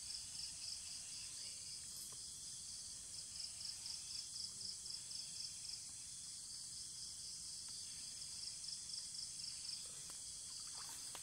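A steady, high-pitched chorus of insects with a rapid, evenly pulsing trill, over a faint low rumble of outdoor background noise.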